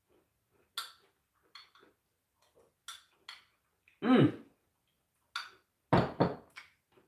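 A spoon clicking against a ceramic mug several times as a man eats a cream dessert from it. There are louder mouth sounds of eating: a short voiced one about four seconds in and two quick ones near the end.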